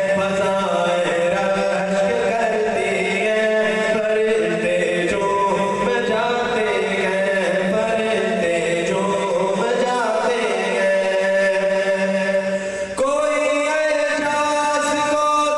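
A man's solo voice reciting a naat, devotional poetry sung unaccompanied in long held, ornamented phrases. A steady low drone lies beneath it and stops about thirteen seconds in.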